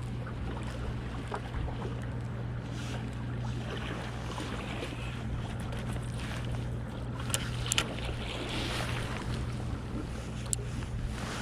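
Steady low motor hum, like a boat's engine, over wind and water noise, with a few sharp clicks in the second half.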